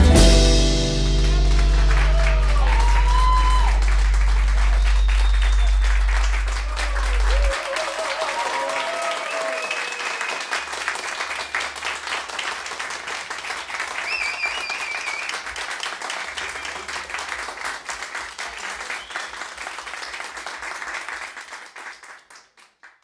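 The final chord of a live song rings out for several seconds, while an audience applauds with some shouts and cheers; the applause fades away near the end.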